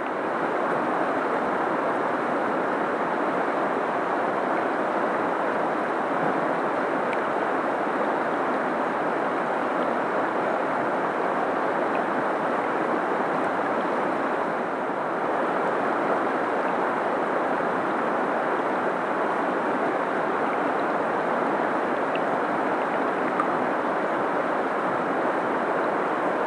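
Steady rush of flowing river water, an even noise that holds without change.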